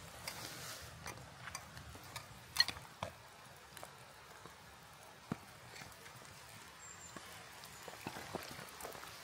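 Thin stream of water trickling from a water filter into a metal pot, with scattered small clicks and one sharp clink about two and a half seconds in.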